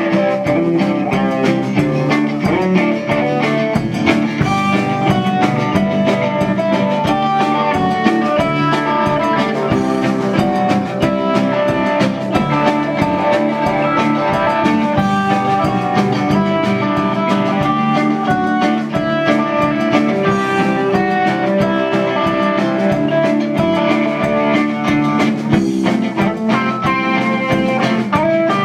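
A live band playing blues-rock: electric guitar lead lines over a drum kit.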